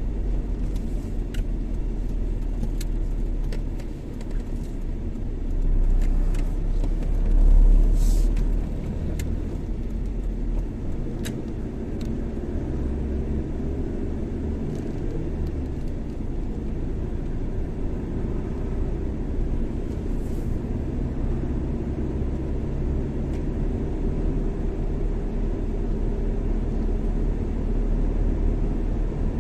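A car driving along a road: a steady low rumble of engine, tyres and wind. A few light clicks come in the first dozen seconds, and the sound swells briefly about six to eight seconds in.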